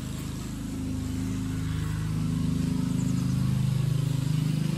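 An engine running steadily, a low pulsing drone whose pitch shifts slightly.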